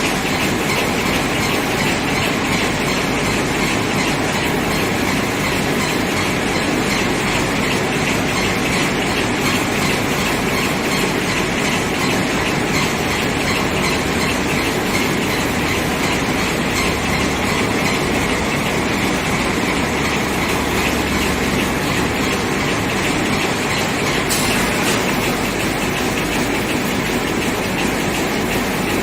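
Automatic chicken scalding and plucking machine running, with a steady, fast mechanical clatter.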